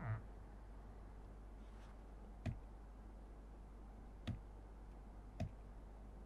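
Three faint, sharp clicks of a pen tip tapping the drawing surface during drawing, over a low steady hum.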